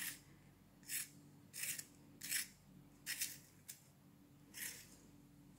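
A colored pencil being sharpened: about eight short rasping scrapes, irregularly spaced half a second to a second apart, stopping about a second before the end.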